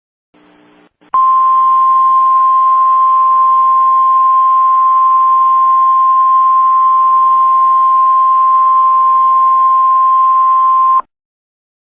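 Emergency Alert System attention tone: a single steady, high beep that begins sharply about a second in, holds unchanged for about ten seconds and cuts off suddenly. It signals that an emergency broadcast message follows.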